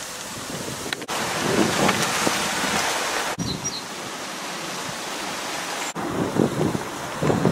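Gusty wind blowing over the microphone: a steady rushing hiss with low rumbling buffets. The noise cuts off abruptly and starts again three times.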